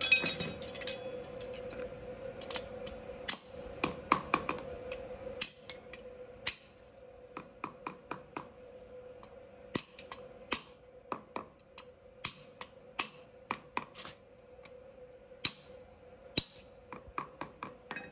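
Farrier's hammer tapping on horseshoe nails at a horse's hoof: a long run of sharp metallic taps, irregular, in quick pairs and short bursts with brief pauses between.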